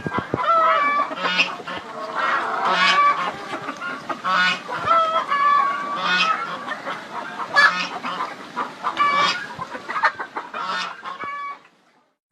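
A flock of laying hens clucking and squawking, many birds calling over one another; it cuts off suddenly shortly before the end.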